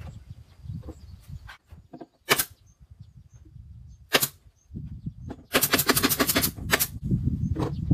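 Cordless drill-driver driving screws into a wooden speaker enclosure: two brief bursts, then a longer burst of rapid, even rattling lasting about a second, and one more short burst near the end.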